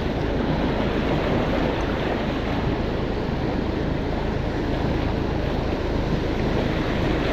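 Steady rushing of wind buffeting the microphone together with sea surf.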